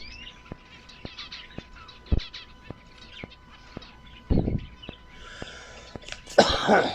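Small cage birds chirping in short scattered calls, over faint regular ticks about twice a second and a few low thumps.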